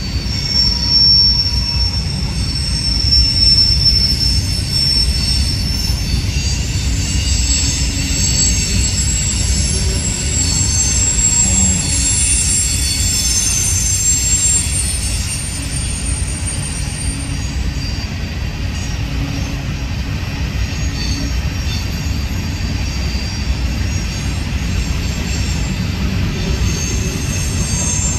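BNSF coal train's hopper cars rolling past, a steady low rumble of wheels on rail with a high-pitched wheel squeal that comes and goes, strongest in the first half.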